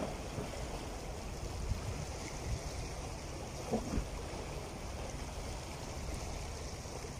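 Small sea waves lapping and washing against shoreline rocks, with a couple of brief splashes about halfway through.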